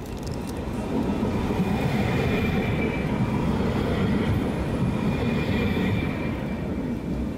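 Kaohsiung Circular Light Rail tram passing close by on its track: a rumble of wheels and running gear that swells about a second in and eases off near the end. A faint high whine rides on top.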